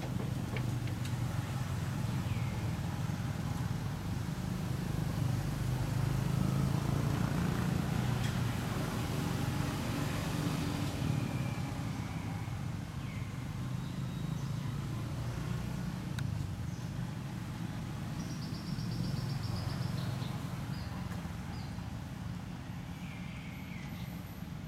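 Low rumble of vehicle engines, swelling near the middle and easing off again, with short high bird chirps and a brief rapid trill over it.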